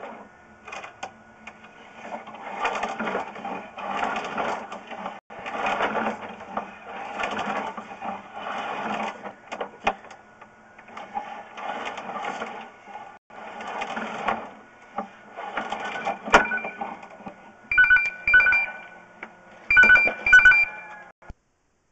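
Sewer inspection camera push cable being fed into the line by hand, a scraping, rattling noise in repeated strokes about every second and a half. Near the end, after the feeding stops, a two-tone electronic ring sounds twice.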